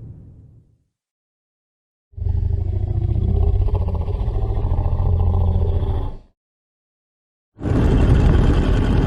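Dragon roar sound effects: a deep roar lasting about four seconds, then after a pause a second, harsher and brighter roar starting near the end. A previous roar fades out at the very start.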